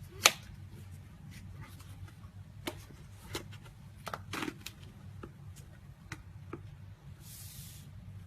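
Slime being handled, giving a series of sharp sticky clicks and pops, the loudest right at the start and a cluster a few seconds in, with a brief hiss near the end.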